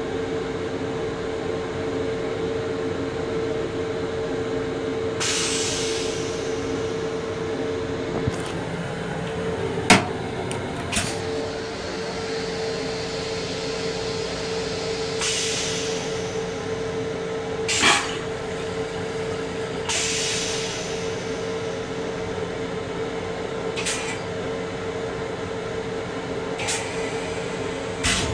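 Steady running hum of an LIRR M7 electric railcar heard from inside its small restroom, with a few short hisses of air and several clicks and knocks, the sharpest about ten seconds in and another near eighteen seconds.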